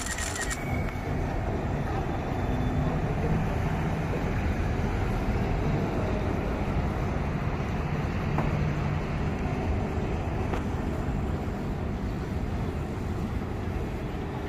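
Steady rumble of a running vehicle or passing traffic, strongest in the low end.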